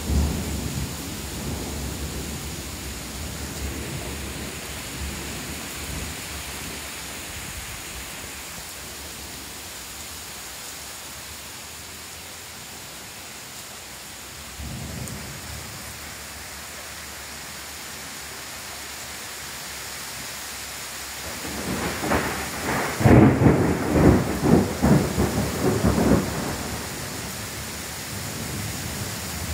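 Heavy rain pouring steadily through a thunderstorm. Thunder rumbles at the start and faintly again about halfway, then a loud thunderclap rumbles for about four seconds near the end.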